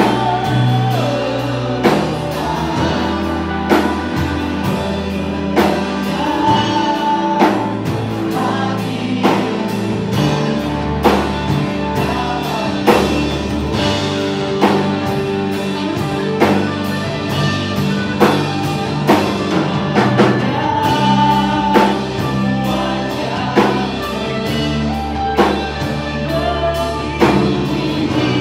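Live worship music: several singers on microphones sing a worship song together over a full band, with a steady beat.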